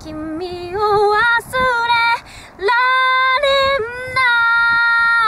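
A young woman singing a slow Japanese pop ballad line solo, without accompaniment, in long held notes joined by short slides between pitches.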